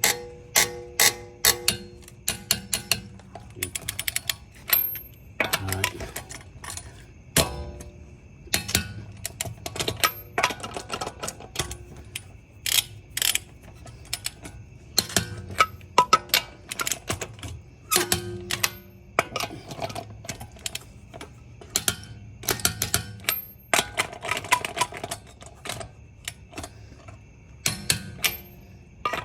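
Click-type torque wrench ratcheting on the wheel's lug nuts: quick runs of sharp metallic clicks with pauses between them.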